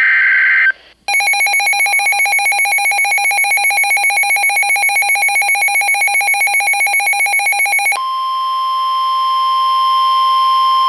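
Weather radio emergency alert. First the end of a buzzy SAME data header burst, then about a second in a rapidly pulsing electronic alarm beep for about seven seconds. Near the end this gives way to NOAA Weather Radio's steady single-pitch warning alarm tone, the signal that a warning follows.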